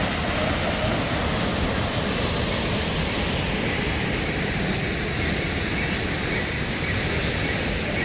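Arvalem waterfall in full flow: a steady, loud rush of water falling into the pool below.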